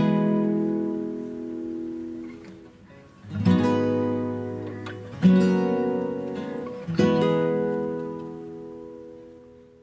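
Background music: acoustic guitar strumming slow chords, each left to ring and fade, four in all, the last dying away near the end.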